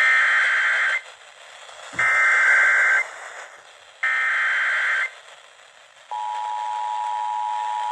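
Emergency Alert System activation: three one-second bursts of buzzing digital header data, each about a second apart, then about six seconds in the steady two-tone attention signal begins.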